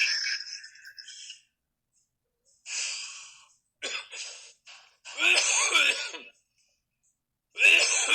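A person coughing and clearing their throat in several harsh bouts, the longest around the middle and another near the end, from breathing in the smoke and dry-chemical extinguisher powder left by the fire.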